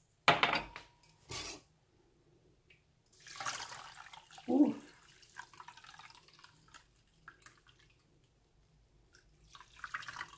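A couple of sharp clanks of metal kitchenware, then blended rice milk dripping and trickling through a metal sieve into a stainless bowl, with more poured in from a glass jug near the end.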